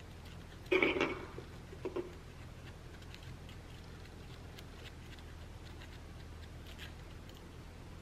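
Faint small scratches and ticks of a thin pick scraping old adhesive bits off a push-button's chrome trim ring, over a low room hum. About a second in there is a short, louder handling clatter, and a smaller one about a second later.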